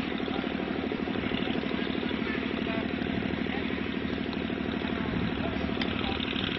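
An engine running steadily at idle, with an even, rapid pulse.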